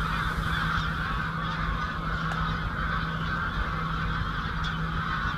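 A large flock of geese in flight, many birds honking at once in a dense, continuous chorus.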